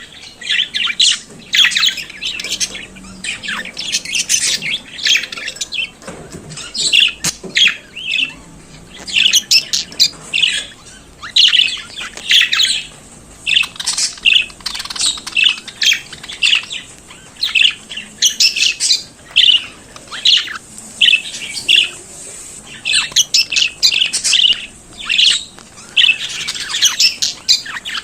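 Budgerigars chattering and warbling: a continuous stream of rapid high chirps, squawks and trills in irregular clusters.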